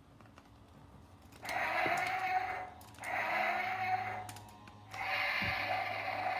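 Electronic sound effect from a Godzilla toy figure's small built-in speaker, playing in three stretches with short breaks between them; the thin, mid-pitched sound is typical of a toy speaker.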